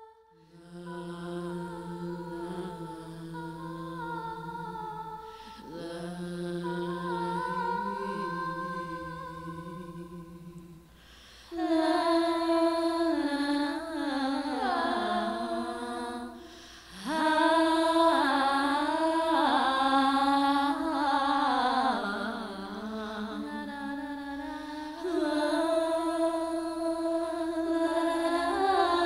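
Wordless vocal music: a voice humming and singing long held notes that glide up and down, growing louder and fuller about eleven seconds in.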